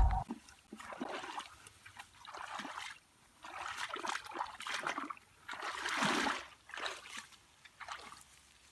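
Shallow muddy water splashing and sloshing in short irregular bursts as hands grope through it while fishing by hand.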